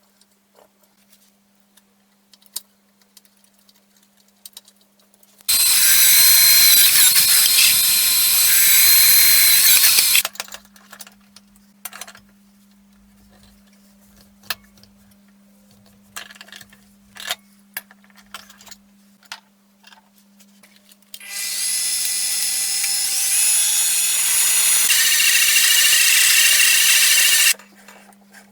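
Angle grinder running on steel in two bursts of about five and six seconds, a loud, steady grinding with a high motor whine that starts and cuts off sharply. Between them come small clicks and knocks of handling over a steady low hum.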